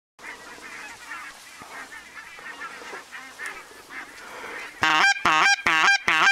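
Flock of geese honking faintly in the distance, then about four and a half seconds in four loud, close honks from a hunter's goose call answering them.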